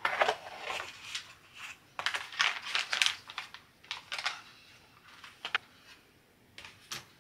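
A cardboard box being opened and a kit unpacked: packaging rustling in several short stretches, then a few light clacks as thin wooden sheets are set down on a wooden table.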